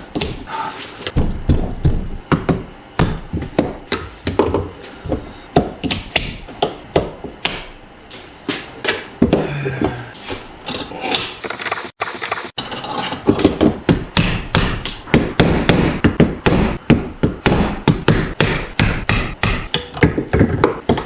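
Hammer tapping a screwdriver blade against a U-joint retaining clip in the yoke of a double cardan driveshaft joint, knocking the clip loose. The sharp metal strikes come two to three a second, with a brief break a little past the middle.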